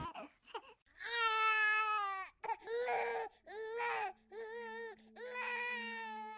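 Infant crying: five wailing cries, each about a second long, with short breaths between them. A steady low hum comes in about halfway through.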